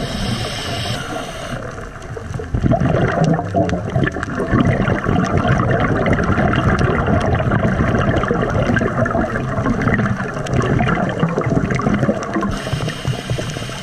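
Underwater rushing and gurgling of scuba bubbles and regulator breathing, picked up through the camera's underwater housing, growing louder about two and a half seconds in.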